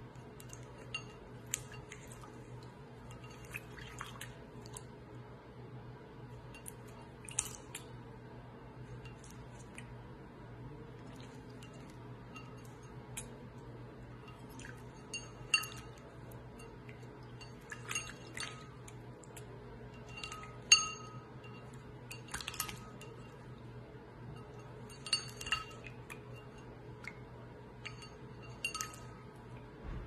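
Scattered short clinks and taps, about a dozen, on a small ceramic bowl as two peach-faced lovebirds shift about in it, the loudest a little past the middle, over a faint steady low hum.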